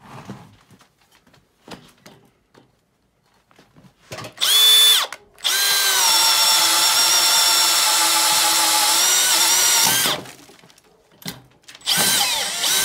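Makita XPH07 brushless cordless hammer drill on speed one, boring a 1-inch self-feeding auger bit into wood. The motor whines in a short burst about four seconds in. Then it runs steadily for about four and a half seconds and stops, and gives another short burst near the end.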